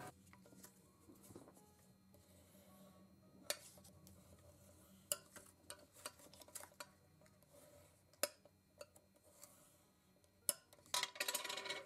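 Sparse light clicks and taps of craft tools and paper being handled on a work table, over a faint steady hum, with a brief scratchy rustle near the end.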